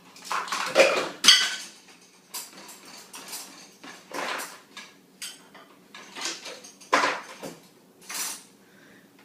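Dishes and cutlery clinking and clattering in irregular knocks as a small child takes them out of the dishwasher, the loudest clatter about a second in.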